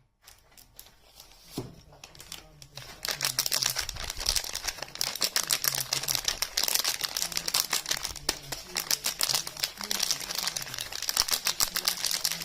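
Soap packaging wrapper being crinkled and torn open by hand: a few light crackles at first, then dense, continuous crinkling from about three seconds in.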